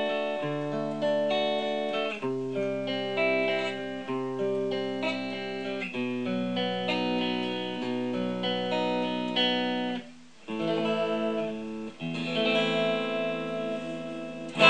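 Ibanez S470 electric guitar played clean through an amp and picked up by a camera's built-in microphone: picked chords ringing out, changing about every two seconds. About ten seconds in the sound drops briefly, then quicker repeated notes and more ringing chords follow.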